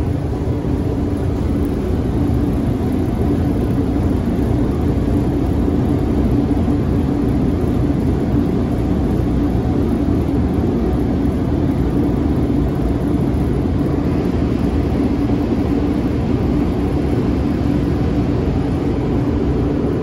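HVAC unit running: steady fan and airflow noise with a constant low hum.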